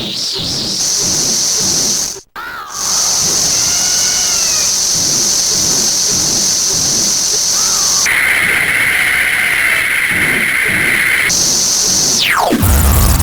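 Circuit-bent toy sound chips from a toy dragon and a toy chainsaw putting out glitchy electronic noise: a steady high hiss that cuts out briefly about two seconds in, with faint warbling arched calls underneath. A high tone joins the hiss from about eight to eleven seconds, and a fast falling sweep comes near the end.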